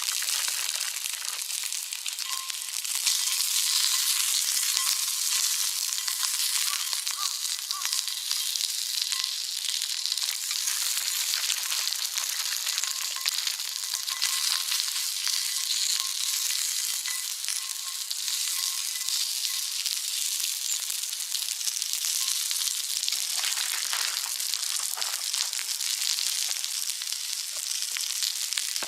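Food sizzling and spitting steadily in an iron frying pan over a campfire.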